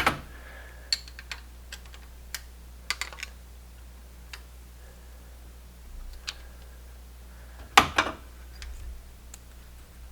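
Scattered light metallic clicks and taps of hand tools on the valve adjusters of a Honda Civic's engine during valve lash adjustment, with one louder knock about eight seconds in.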